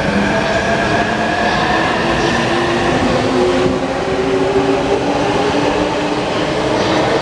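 E259 series Narita Express electric train pulling away and accelerating. Its traction motors whine in several tones that slowly rise in pitch over a steady rumble of wheels on rail.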